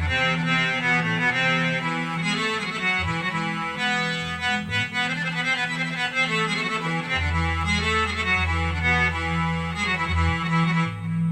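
Korg Kross2 synthesizer playing an Indian-style patch: a melody over a steady low drone, with a deeper bass note held from about seven seconds in.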